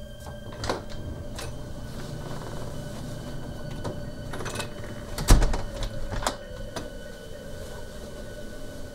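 A door being opened and shut: a string of knocks and clicks, the loudest a thump about five seconds in, over a steady electrical hum.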